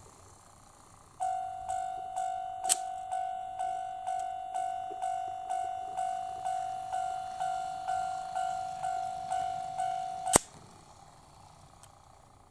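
Model railway level-crossing warning bell from a KATO automatic crossing, dinging about twice a second for about nine seconds, then cutting off suddenly with a sharp click. A second click comes shortly after it starts.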